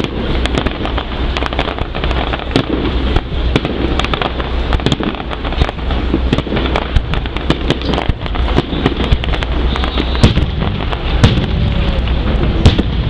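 Fireworks display: a dense, continuous run of crackling bursts and bangs, with a few sharper, louder bangs in the last few seconds.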